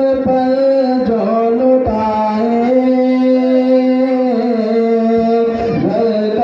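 A man's voice singing a manqabat, drawing out long held notes that step up and down in pitch, amplified through a stage microphone.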